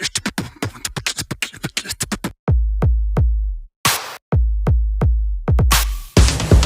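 Electronic hip-hop style background music: a fast drum-machine beat of rapid hi-hat ticks, dropping out about two and a half seconds in to a few deep bass booms, then the full beat returning near the end.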